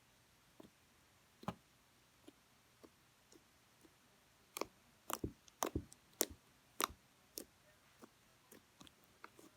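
Slime being squeezed and poked, giving sharp irregular clicks and pops. They are sparse at first and come thick and loud in the middle.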